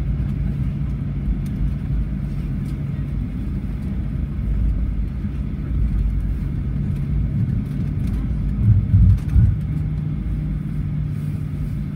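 Cabin noise of a Boeing 737-800 taxiing: a steady low rumble of its CFM56-7B engines near idle, with a steady hum. A few loud thumps come about three-quarters of the way through.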